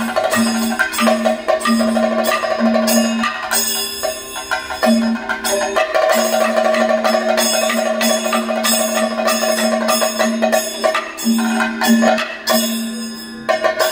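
Kathakali stage accompaniment: fast percussion strokes and ringing metal gong and cymbal hits over a held drone note, which breaks off and comes back several times.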